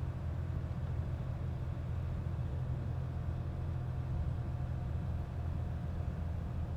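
Steady low rumble of a car driving along the highway, heard from inside the cabin: engine and road noise at an even cruising pace.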